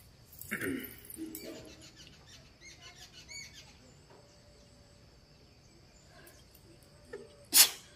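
A woman sneezes once, sharp and loud, near the end, a sneeze set off by tickling the inside of her nose with a cotton swab. Before it there are a short breathy sound and a few faint high squeaks.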